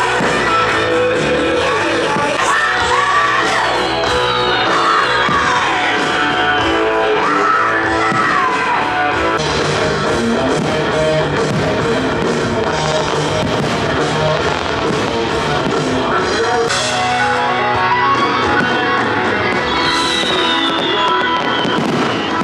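Rock music with singing and electric guitar, loud and continuous.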